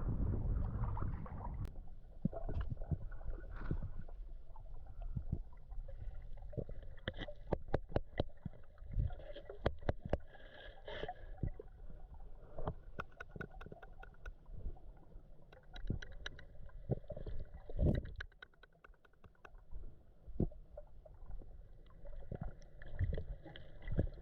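Muffled underwater sound: a low rumbling and gurgling with many sharp clicks and ticks, thickest in a run about a third of the way through.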